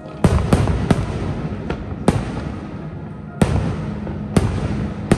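Fireworks display: a string of sharp bangs from bursting aerial shells, about eight in five seconds, over a continuous low rumble.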